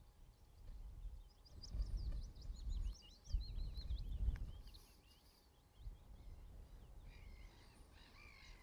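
Birds calling over open moorland: a quick run of short, chirping calls in the middle, with a few more calls near the end. Gusts of wind rumble on the microphone throughout.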